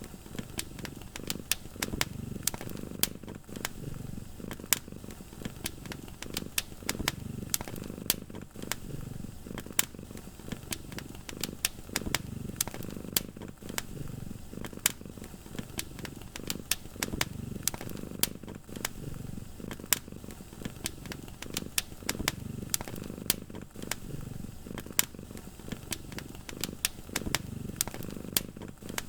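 Wood fire crackling, with frequent sharp pops and snaps, over a cat's low purr that swells and fades every couple of seconds.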